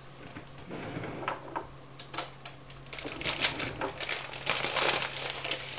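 Plastic packet of vermicelli crinkling and crackling as it is handled and opened, in scattered clicks that grow denser about halfway through, over a steady low hum.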